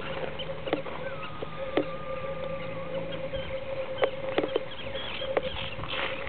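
Greylag goslings peeping in short high chirps, with a few sharp clicks now and then and a steady hum underneath.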